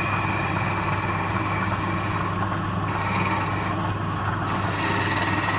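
Wood lathe's electric motor running steadily.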